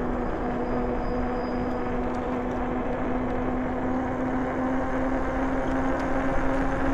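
A Rad Rover fat-tyre electric bike being ridden: a steady hum with overtones that rises slightly in pitch as the bike picks up speed, over a wash of wind and road noise.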